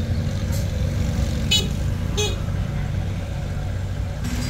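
Heavy diesel engine running with a steady low rumble, with two short high horn toots about a second and a half and two seconds in.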